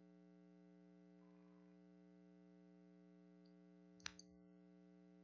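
Near silence with a faint steady electrical hum, broken by a single sharp click about four seconds in.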